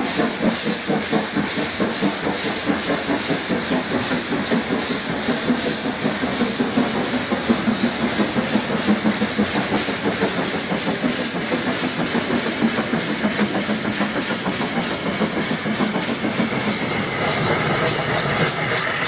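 Two steam locomotives working together, an LMS Jubilee 4-6-0 and an 8F 2-8-0, with a quick, regular chuffing exhaust over a steady hiss of rain.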